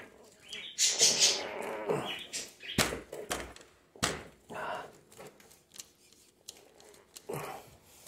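Rubber handlebar grip squeaking and rubbing as it is twisted and forced onto an e-bike handlebar, with a few sharp knocks about three and four seconds in.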